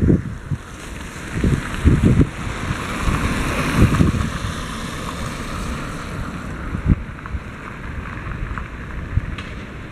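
Strong wind buffeting the camera microphone in irregular gusts, with a car driving past on the wet road about three to four seconds in.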